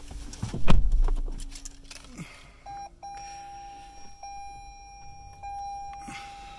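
A heavy thump about a second in. Then the Toyota Avalon Hybrid's warning chime starts: one steady high tone that breaks off briefly about every second.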